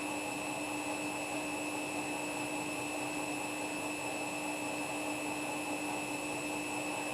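Washing machine spinning at a steady high speed: a constant motor whine with a steady hum under the rush of the turning drum.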